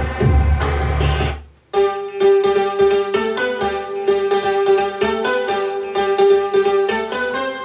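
Music playing through an XGIMI Aura 2 projector's speakers. A bass-heavy passage cuts off suddenly about a second and a half in, then a quick run of keyboard notes follows.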